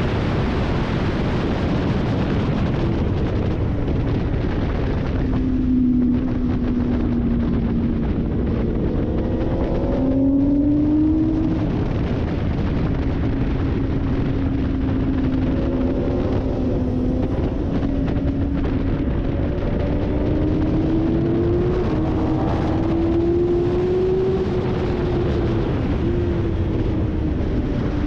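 Motorcycle at racing speed heard through an onboard camera: heavy wind rush over the engine note. The engine note climbs in pitch several times as the bike accelerates out of corners.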